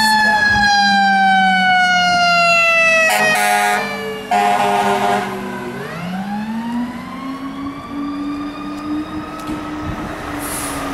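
Fire engine siren responding, its pitch falling slowly, broken by two short horn blasts about three to four seconds in. The siren then rises again and holds.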